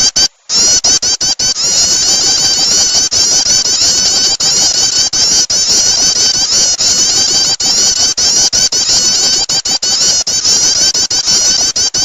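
Prinia (prenjak) 'starter' lure call: loud, rapid, unbroken chirping in high, quick notes, with a brief break about half a second in.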